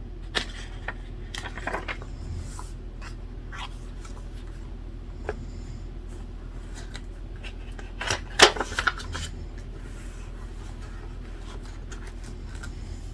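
Desk handling sounds: scattered short clicks and rustles of paper and stationery being handled while studying, with a louder cluster of rustles and taps about eight seconds in, over a steady low hum.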